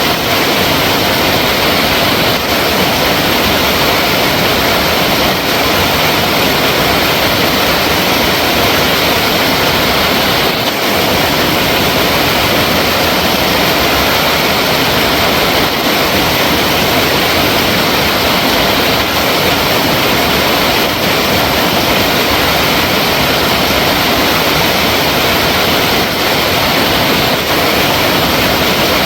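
Flowing water rushing in a steady, loud, unbroken hiss.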